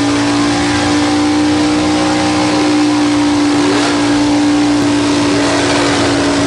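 Modified mud truck's engine held at high, steady revs: one strong unchanging note with a rough noise over it.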